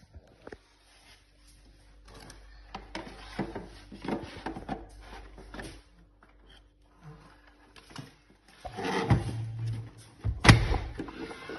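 Handling noises in a small room: a run of clicks, knocks and rustles as things are moved about, with a low hum for a second or so near the end and a sharp knock about ten and a half seconds in.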